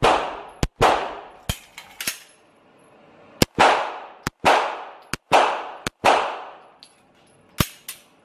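A string of handgun shots fired in quick succession, each ringing off in the echo of an indoor range. There is a break of about a second and a half a couple of seconds in, and the final shot comes near the end.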